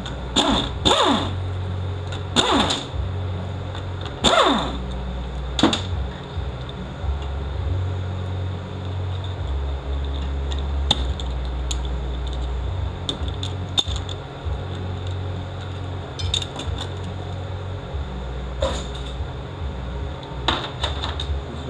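Metal parts and hand tools knocking and clicking during transmission rebuild work, several sharp knocks in the first six seconds and scattered lighter clicks after, over a low hum that comes and goes.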